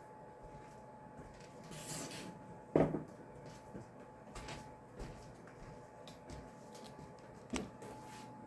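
Scattered light knocks and clicks of household objects being handled, with the loudest knock about three seconds in and another near the end, over a faint steady hum.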